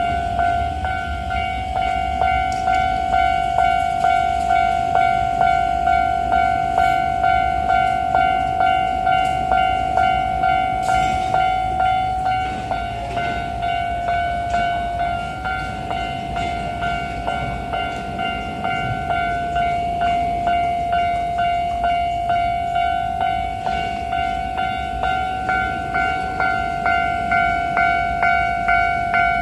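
Japanese level crossing warning bell ringing in a steady repeated ding, about one and a half strokes a second, while a train, a Keikyu New 1000 series electric multiple unit, runs underneath with a low rumble and wheel clicks.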